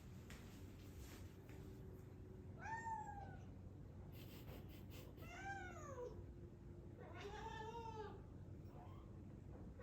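Domestic cat meowing three times, a few seconds apart, each call rising then falling in pitch.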